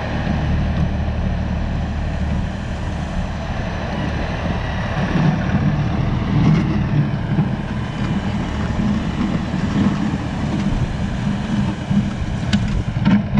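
The diesel engine of an LS compact tractor runs steadily as the tractor pushes snow with its front loader bucket. A few brief knocks come near the end.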